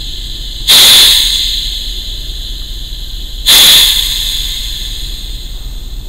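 Electro-pneumatic positioner on a pneumatic control valve venting actuator air in two sudden loud rushes, about three seconds apart, each fading over about a second, as the valve strokes toward closed on a drop of the command to 4 mA. A steady low hum runs underneath.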